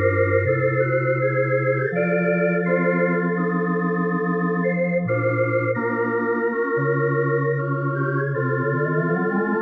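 Yamaha PSR-S670 digital arranger keyboard playing an organ voice: sustained chords over a bass line that moves to a new note every second or few. Near the end the chord slides upward in pitch.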